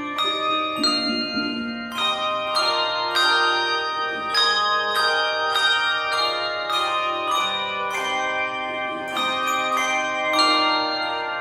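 Handbell choir playing: a steady run of struck bell notes and chords, each left ringing into the next.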